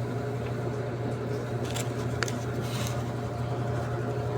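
Daewoo washing machine running with a steady low motor hum, with two short scratchy noises a little after the middle.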